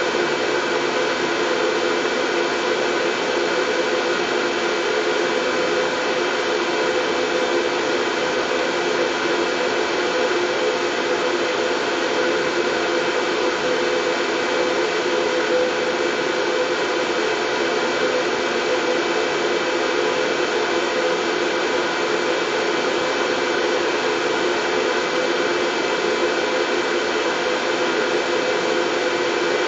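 Steady, unbroken white noise, a constant hiss with a few faint steady tones running through it, of the kind played to lull colicky babies to sleep.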